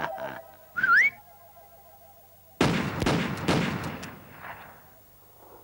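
A brief rising whistle, then, about a second and a half later, a quick volley of several gunshots whose sound dies away over a couple of seconds.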